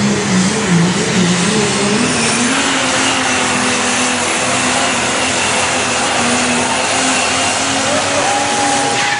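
A super stock diesel four-wheel-drive pickup running flat out under load as it pulls the sled, loud and steady with a high whistle over the engine note. The sound cuts off abruptly near the end as the pull ends.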